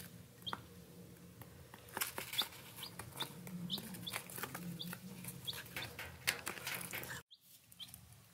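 Baby chicks peeping softly: scattered short, high chirps with small ticks and rustles in the pine-shaving bedding, over a low steady hum. The sound drops out briefly near the end.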